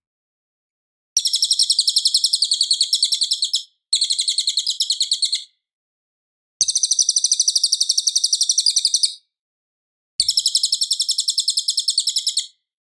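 Cililin bird singing four bouts of fast, high-pitched trilled notes, each bout about one and a half to two and a half seconds long, with short silent gaps between them.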